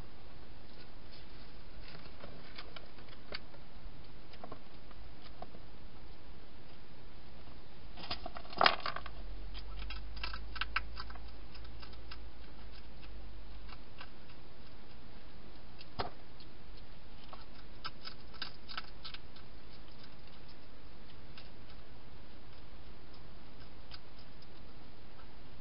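A wild European hedgehog moving and eating inside a plastic feeding box: scattered clicks and crunches, with one louder knock against the box about eight or nine seconds in, over a steady hiss.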